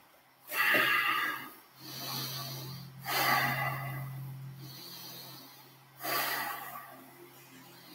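A person breathing slowly and deeply, with about five long, audible breaths in and out.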